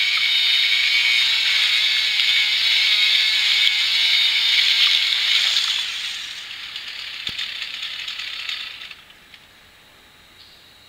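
Chainsaw running from a horror film's soundtrack, a loud rattling clatter whose pitch wavers up and down. It weakens about six seconds in and dies away near nine seconds, heard through a TV's speakers.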